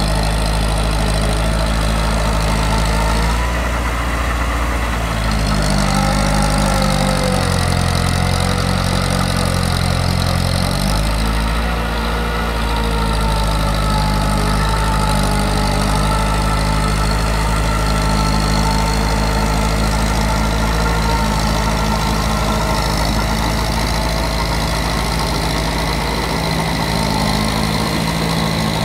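Massey Ferguson 185 tractor's diesel engine running steadily under load as it works through a flooded paddy field; the engine note shifts between about six and eleven seconds in, then settles back.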